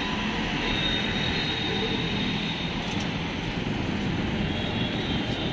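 Steady road traffic noise, with a thin high whine through the first half.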